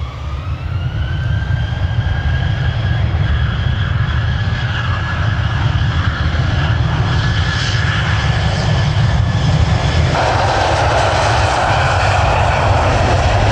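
Twin turbofan engines of a Bombardier Global 7500 business jet at takeoff power. A whine rises over the first second or so and then holds steady above a deep rumble, and a louder roar joins about ten seconds in as the jet rolls for departure.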